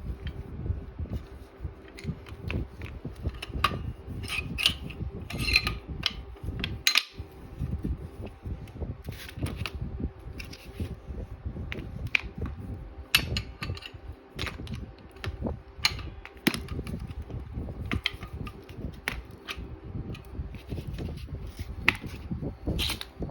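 Irregular metallic clicks and clinks over a steady low rumble, as metal parts of a homemade air gun are handled.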